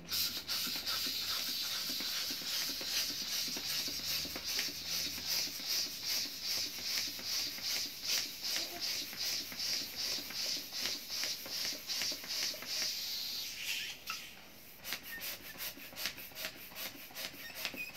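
Hand balloon pump worked in quick, regular strokes, each stroke a rasping hiss of air pushed into a balloon. The strokes run steadily at first, pause briefly about fourteen seconds in, then come more spaced out near the end.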